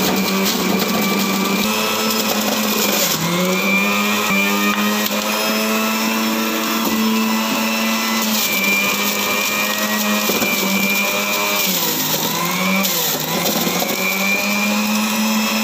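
Electric juicer motor running steadily as carrots are pushed down the feed chute and shredded. The hum dips in pitch briefly about three seconds in and twice again near the end as the motor takes the load of a carrot.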